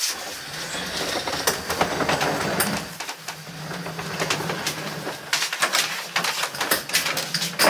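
Upholstered bench being dragged across a wooden floor: a rough, steady rumbling scrape with scattered knocks, starting about a second and a half in and stopping just before the end.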